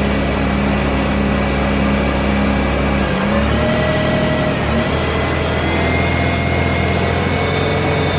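Akebono Minc-26 CNC gang-tool lathe running, its spindle turning the workpiece with a steady mechanical hum and whine. About three seconds in the pitch of the hum shifts as the tool slide moves in toward the part.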